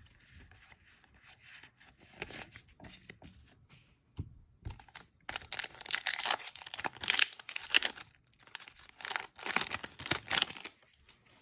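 Magic: The Gathering booster pack's foil wrapper being torn open and crinkled by hand. The tearing comes in two loud spells starting about halfway through.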